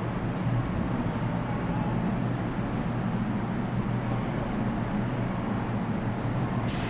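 Steady low mechanical hum over a constant even background noise, with no breaks or changes.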